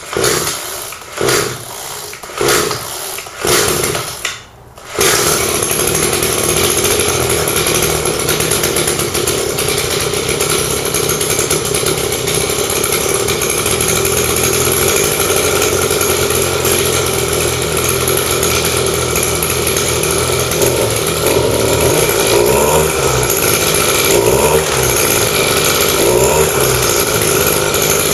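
Brush cutter's small engine pull-started with a few tugs on the recoil starter; it catches about five seconds in and runs steadily. In the last several seconds the engine speed rises and falls a little as it is run to burn carbon out of the muffler.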